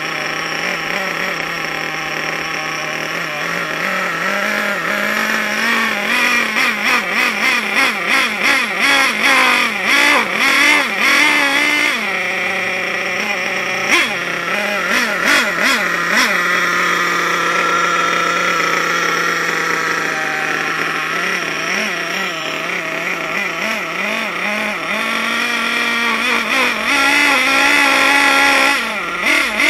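Glow-fuel nitro engine of a Hot Bodies Lightning GT radio-controlled car running, with a buzzing note that is blipped up and down in quick revs through the middle, then holds steadier before rising again near the end. It sounds very noisy.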